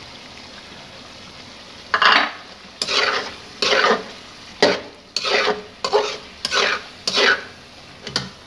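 Metal spatula stirring chicken curry in a metal karahi as yogurt is mixed in. A low, steady sizzle is followed by about eight quick scraping strokes against the pan.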